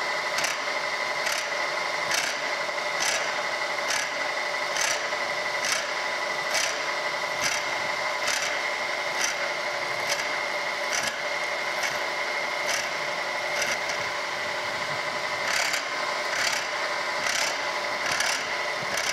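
Slitting saw on a vertical milling machine cutting a screwdriver slot in a screw head: a steady whine with a sharp scrape repeating about once a second, which the machinist suspects is the cutter not running quite true.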